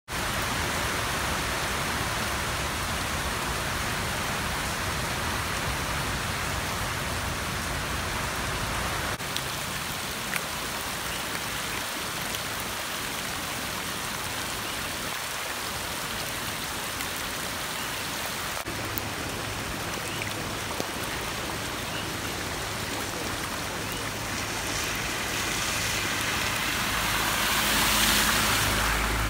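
Steady rain falling on a wet road, a continuous hiss. Near the end a car passes close by, its engine hum and the hiss of its tyres on the wet road swelling.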